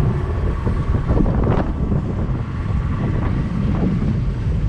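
Wind buffeting the microphone on a small roller coaster ride, a heavy, unsteady rumble, with a few faint clacks from the train running on the track.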